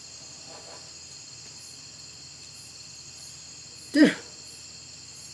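Steady chorus of night insects, a high trilling made of several even tones. About four seconds in, a man gives one short, loud vocal cry that falls in pitch.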